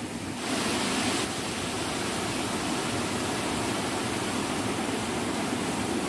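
Rushing water of a rocky stream cascading over boulders: a steady noise that grows louder about half a second in.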